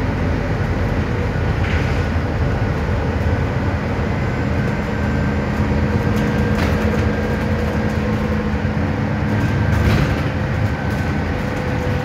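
Inside a bus under way: steady engine and road noise with a low hum, a faint higher whine from about four seconds in, and a few short knocks from the cabin fittings.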